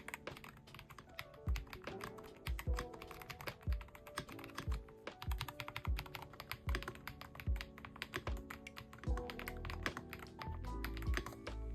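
Typing sound test on an Aula F98 Pro gasket-mounted, hot-swappable mechanical keyboard fitted with Caramel Latte switches: a rapid, continuous run of key clacks. Background music with a steady beat plays underneath.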